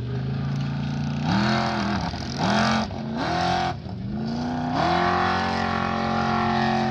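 Formula Offroad buggy's engine revving hard under load as it climbs a steep sand hillside: three short bursts of revs, then held at high revs from about five seconds in.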